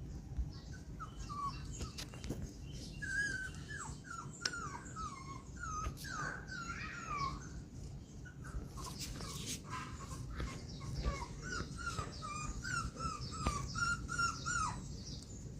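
Poodle puppy whimpering: a long run of short, high whines, many falling in pitch, with a few light clicks and knocks among them.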